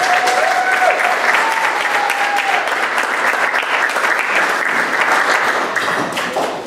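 Congregation clapping in applause, many hands at once, steady throughout and dying away at the very end.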